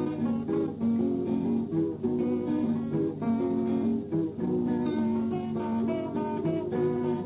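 Acoustic guitar strumming and picking a steady, rhythmic accompaniment to a popular Kimbundu song.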